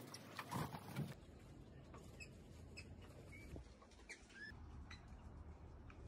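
Several faint, short, high squeaky chirps from an Australian ringneck (twenty-eight parrot), scattered over a few seconds, some gliding briefly up or down. A louder burst of rustling noise fills the first second.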